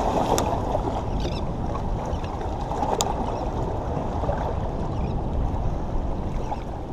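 Water washing and sloshing against jetty rocks, a steady rushing noise, with two brief sharp clicks, one near the start and one about three seconds in.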